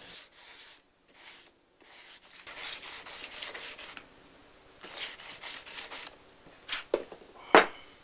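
A cork sanding block faced with wet-and-dry paper rubbed over the epoxy-putty repair on a steering wheel rim, in two short spells of rasping strokes. Two or three sharp knocks follow near the end, the last the loudest.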